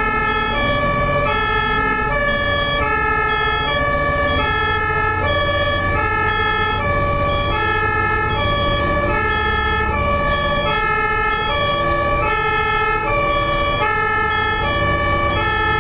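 German ambulance two-tone siren (Martinshorn) sounding continuously, alternating steadily between a high and a low tone, each held for well over half a second. Low road rumble of traffic runs underneath.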